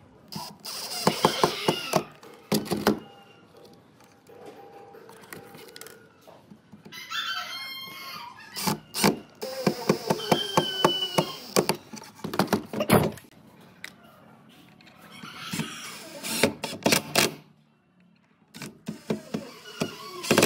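A cordless drill-driver drives small screws into a steel butt hinge on a wooden door, in several short bursts. Between the bursts a bird calls in the background, about a third of the way in.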